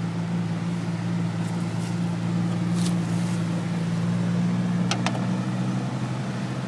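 Steady engine drone from a pickup truck and a line of four-wheelers it is towing through deep floodwater. A couple of brief clicks about three and five seconds in.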